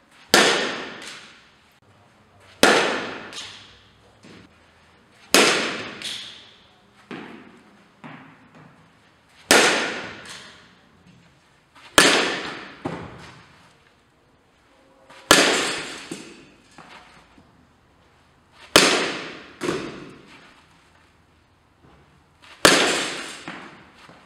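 A fastpitch softball bat striking tossed softballs, eight sharp cracks every few seconds, each ringing out in the echo of a large indoor hall. Fainter knocks follow between some hits.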